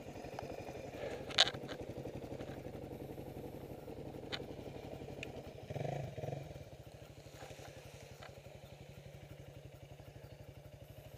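Enduro motorcycle engine running at low revs with a steady, even pulse, with a few sharp clicks and a brief louder rise about six seconds in.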